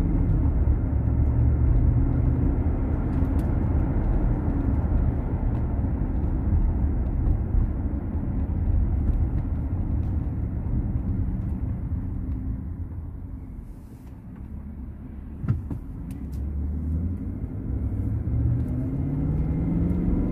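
GMC Yukon XL driving, heard from the cabin: a steady engine and road rumble that eases off about two-thirds of the way through, then an engine note rising in pitch as the SUV accelerates again. A single short click sounds during the lull.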